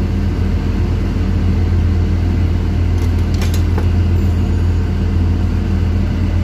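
Steady, loud low drone of running shipboard machinery, with a few faint clicks about three seconds in.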